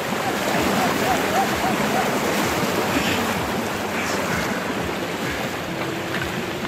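Shallow mountain river rushing steadily over a bed of rounded stones.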